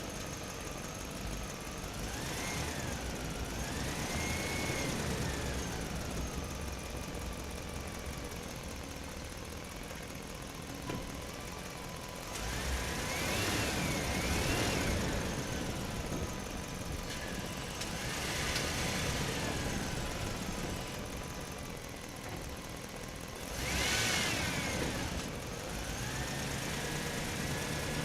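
Truck driving inside a parking structure: engine running steadily, with several swells where a high tone rises and falls, the loudest about halfway through and again near the end.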